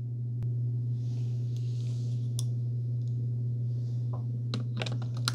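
A steady low hum with scattered sharp clicks, several of them close together near the end.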